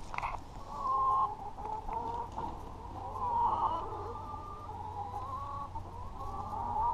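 Hens clucking and calling in a near-continuous run of drawn-out, wavering notes, louder about a second in and again past the middle.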